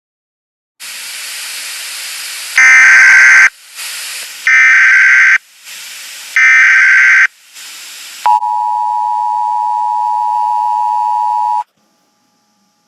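Emergency Alert System tones: three one-second bursts of screeching SAME header data, with hiss between them, then the steady two-pitch attention tone for about three seconds, which cuts off suddenly. Together they signal the start of an emergency alert, here a tornado warning.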